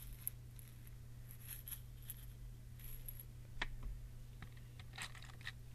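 A few faint clicks and taps of small glass ampoules holding metal samples being handled and set down, the sharpest about three and a half seconds in, over a low steady hum.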